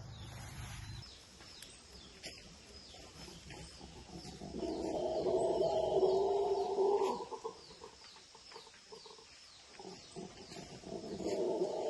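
Chickens calling, with one long call about four seconds in lasting some three seconds and another starting near the end. Faint high bird chirps repeat throughout.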